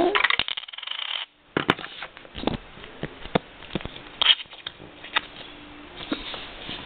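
Rustling handling noise close to the microphone in the first second, then scattered light clicks and knocks as hands handle a small Lego brick machine.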